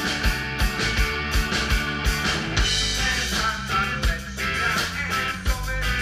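Live rock band playing: electric guitars, bass and a drum kit with a steady kick-drum beat about three a second. The kick drum drops out about two seconds in and comes back near the end.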